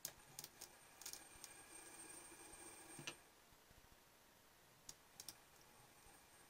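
Faint irregular clicks and small scrapes of wire leads being touched and pressed against the metal shaft terminals of a homemade homopolar motor. A faint steady whine sounds for the first three seconds and stops on the sharpest click.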